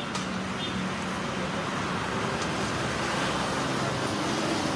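Steady road traffic noise, a continuous wash of passing vehicles that grows a little louder toward the end.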